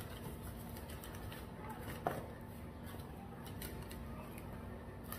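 Faint eating and food-handling sounds: small clicks and crinkles, with one sharp knock about two seconds in, over a low steady hum.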